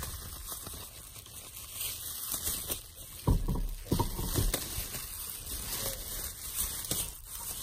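Crinkling and rustling handling noise close to the microphone, with a few soft thumps about three to four and a half seconds in.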